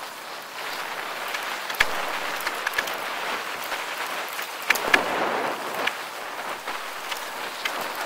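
Bicycle tyres rolling fast over a loose, stony trail, a steady crunching hiss dotted with irregular clicks and small rattling knocks from stones and the bike.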